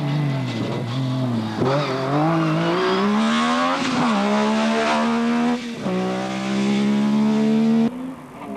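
Metro 6R4 rally car's V6 engine: it slows, then accelerates hard with rising revs and gear changes about four and six seconds in, holds high revs, and lifts off near the end.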